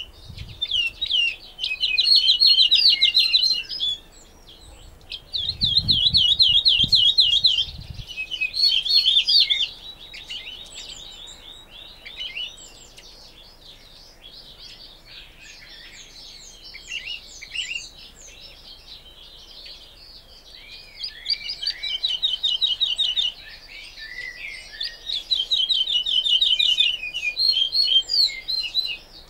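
Woodlark singing: loud, fast trilled phrases of quickly repeated notes, with softer, varied twittering in the middle stretch. A few low thumps about six to eight seconds in.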